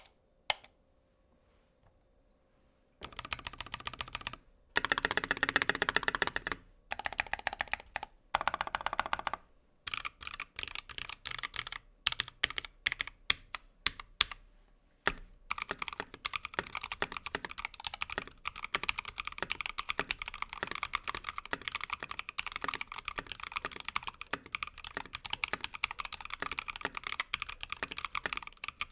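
Freebird60 mechanical keyboard with Tecsee Ice Candy linear switches being typed on. After a couple of lone clicks and a short quiet, dense runs of rapid keypresses start about three seconds in. Then come separate keystrokes, and from about halfway, steady fast typing.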